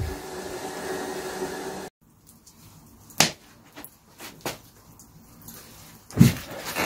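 Kettles steaming on a two-burner camping gas stove: a steady hiss with a faint low tone, cut off suddenly about two seconds in. Then a few scattered knocks and rustles as a person sits down in a chair, with a louder thump about six seconds in.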